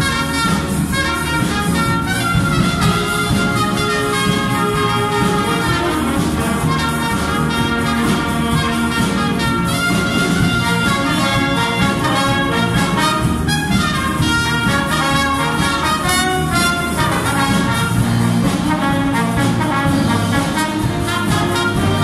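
A big band playing live, trumpets and saxophones sounding together.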